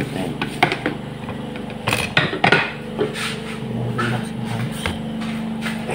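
Dishes clinking and knocking on a table as plates of food are set down, with a cluster of sharp knocks about two seconds in, over a steady low hum.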